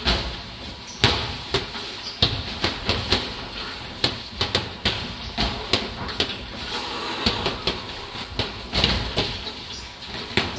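Gloved punches landing during a boxing bout: more than a dozen sharp smacks, irregularly spaced and some coming in quick flurries.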